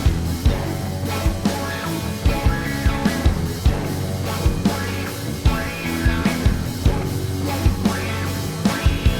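Background music with a steady beat of drum hits over sustained notes.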